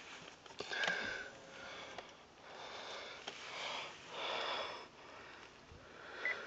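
Faint breathing and sniffing close to the phone's microphone, a few drawn breaths each under a second long, with light clicks of handling. Two short high beeps come near the end.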